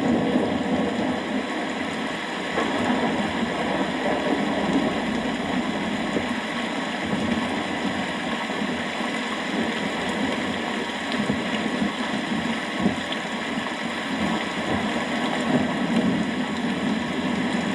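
Steady rainfall, a dense even hiss with no distinct thunderclap.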